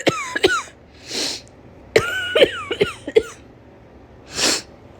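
A woman with a summer cold coughing in two fits of short, rough coughs, one at the start and one about two seconds in. Each fit is followed by a sharp breath in.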